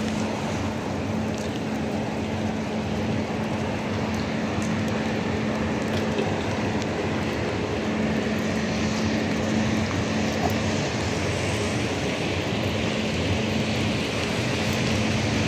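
Steady rushing noise of heavy rain and traffic on wet roads, with a steady low hum underneath.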